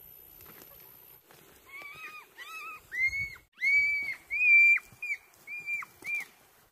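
A series of about eight short, high-pitched animal calls, each held briefly and then dropping off at its end, beginning a couple of seconds in.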